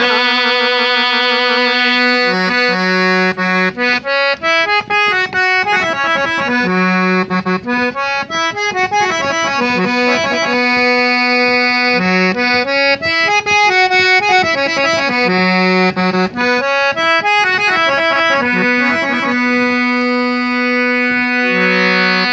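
Instrumental interlude of a folk song: a harmonium plays a melody of held, stepping notes, with light percussion strokes underneath.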